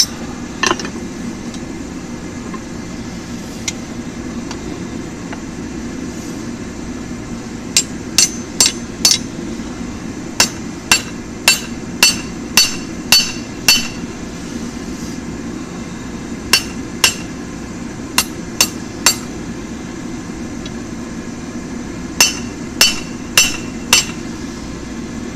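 Hand hammer striking hot 5/8-inch round mild steel on an anvil while forging a tong blank, in four short runs of about four to seven blows roughly half a second apart, each blow with a bright metallic ring. A steady low hum runs underneath.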